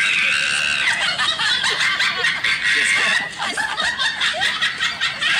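A man laughing hard in long, high-pitched peals.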